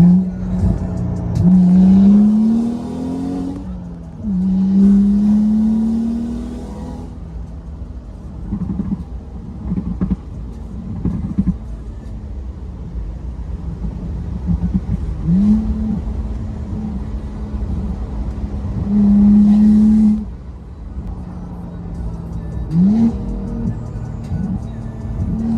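BMW 340i's turbocharged 3.0-litre inline-six running on an open dump from a 6-inch catless downpipe with no exhaust fitted: a loud idle broken by repeated revs, some held for a couple of seconds, others quick blips that rise and fall back.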